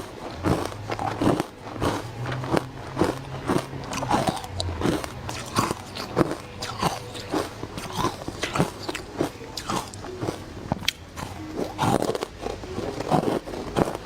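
Close-miked biting and chewing of hard matcha ice: rapid, repeated crisp crunches, several a second, as the ice is bitten and ground between the teeth.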